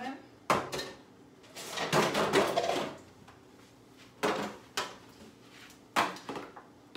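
Disposable aluminium foil pans being pulled out and handled at a kitchen counter: a sharp knock, a longer rustling clatter, then a few separate knocks as the pans are lifted.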